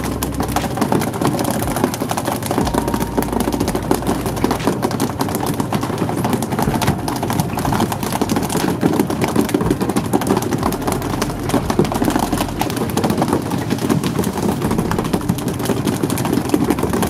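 Fishing boat under way, its inboard truck engine running steadily under the rush of water along the hull.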